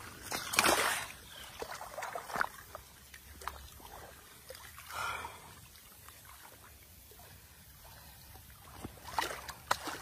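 Water sloshing and splashing in muddy shallows as a large fish is slid back into a river and swims off. There is a loud splash about a second in and more splashing near the end.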